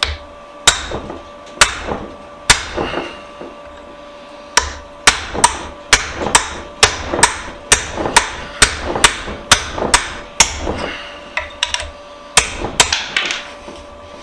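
Hammer blows on a punch driving a pin out of a bench vise: three spaced strikes, then a fast run of sharp ringing metal-on-metal hits at about two a second, and a few more near the end.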